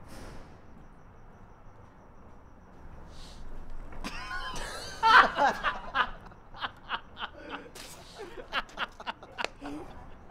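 Young men laughing. The laughter breaks out about four seconds in, peaks loudly just after, then goes on in short repeated bursts, about three a second.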